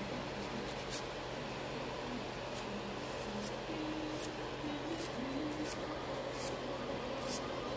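Hand nail file rasping across fingernails in short scratchy strokes, roughly one a second, over the steady whir of a nail dust collector's fan.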